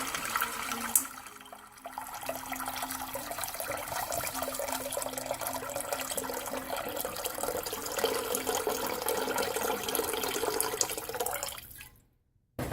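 Water pouring and splashing into a cooking pan, a litre of water going into the soup base. It runs steadily after a short lull about a second in, and stops abruptly near the end.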